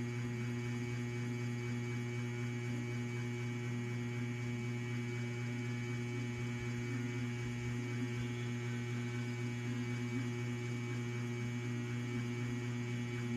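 Steady electrical hum: a low drone with a few fainter fixed higher tones, unchanging throughout.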